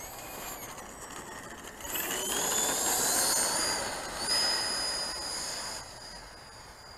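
Electric ducted-fan RC Viper Jet throttling up for takeoff: a high whine that rises in pitch and grows louder about two seconds in, then fades as the jet climbs away.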